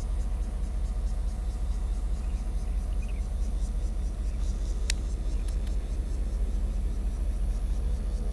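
Diesel locomotive R66 approaching slowly with its coaches: a steady low engine rumble whose drone grows clearer near the end, with a couple of sharp clicks about five seconds in.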